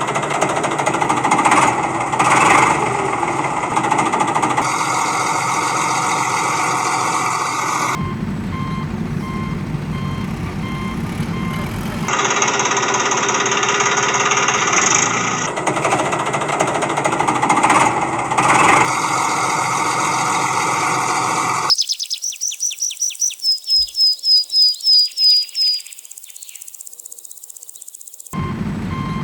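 Machine and engine-like running noise in several segments that cut abruptly from one to the next. Near the end it gives way to a rapid run of short high-pitched chirps, then a brief quieter stretch.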